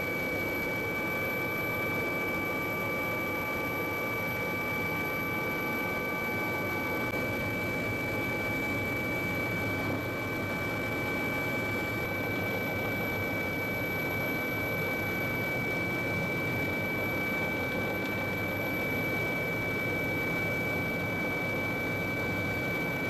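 Steady running machine noise: an even rush with several constant high-pitched tones, unchanging throughout.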